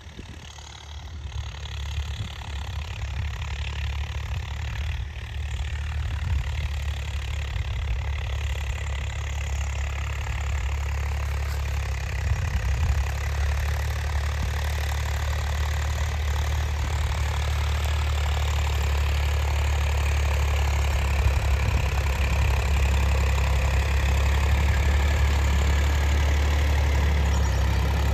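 Swaraj 855 4x4 tractor's three-cylinder diesel engine running steadily under load, pulling an 11-tine cultivator. It grows louder over the first few seconds, then holds an even level.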